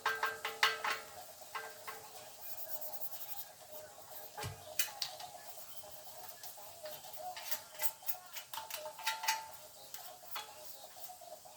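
Irregular metallic clinks and knocks of tools and metal parts being handled, with a single heavier low thud about halfway through.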